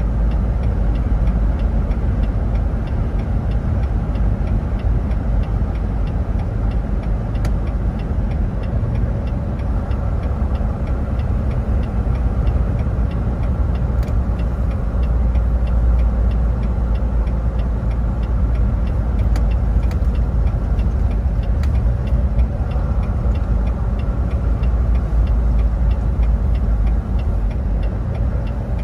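Steady low rumble of a vehicle on the move: engine and road noise running evenly, with faint scattered ticks.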